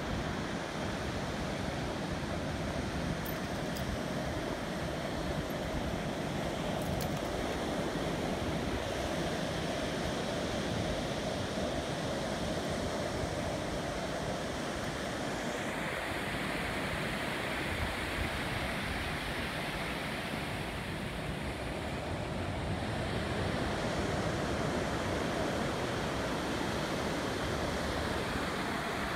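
Ocean surf breaking on a beach: a steady, even rush of waves, with some wind on the microphone.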